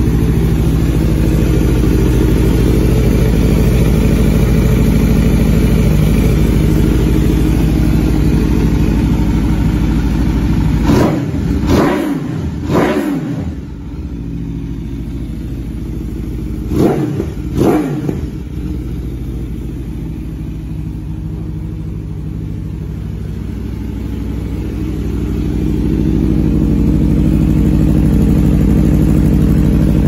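Aprilia RSV4 Factory's V4 engine idling through a Spark aftermarket exhaust, blipped three times in quick succession about eleven seconds in and twice more a few seconds later, each rev rising and falling back to idle. The idle is quieter in the middle and louder again near the end.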